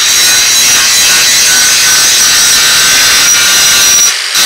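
Handheld angle grinder grinding the mill scale off the edge of a steel plate: a loud steady grinding hiss with a high whine. The wheel comes off the metal briefly about four seconds in, then bites again.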